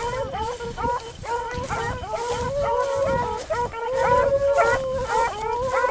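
Several beagles baying while running a rabbit: many overlapping short barks with a couple of longer drawn-out howls near the middle.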